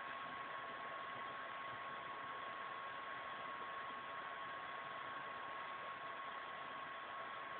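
Steady hiss with a thin, constant high tone: the recording's own background noise, with no other sound.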